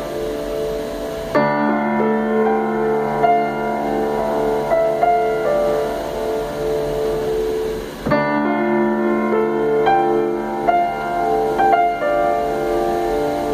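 Newly tuned piano being played slowly. A full chord is struck about a second in and again about eight seconds in, each left to ring while single notes are picked out above it.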